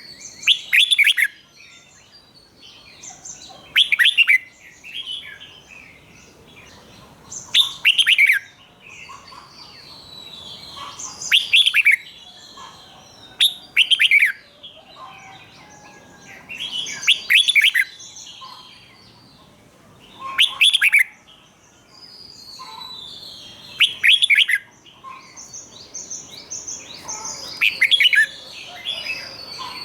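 Red-whiskered bulbul singing: loud, short whistled phrases come about every three to four seconds, with softer twittering between them.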